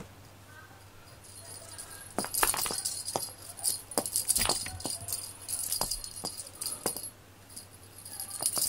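Small bell and rattle on a cat teaser wand jingling as it is shaken and waved, in quick irregular bouts that start about a second in, pause briefly around seven seconds and start again near the end.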